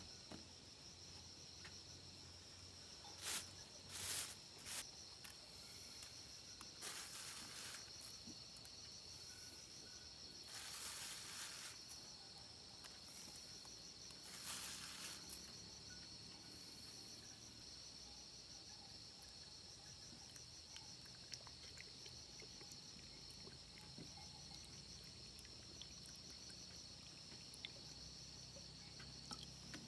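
Insects chirring steadily in a high, even drone, with a few brief rustling bursts from rice being scooped out of a plastic bag into a bamboo tube in the first half.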